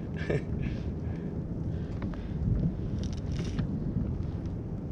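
Wind buffeting the microphone as a steady low rumble, with a few short rustles from handling near the start and about three seconds in.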